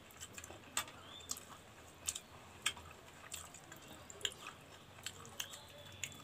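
Faint sounds of eating by hand: fingers working water-soaked rice on plates, with chewing and scattered small wet clicks and smacks.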